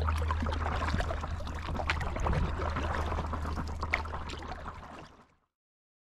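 Water splashing and trickling around a stand-up paddleboard as it is paddled, over a steady low hum. It fades out to silence about five seconds in.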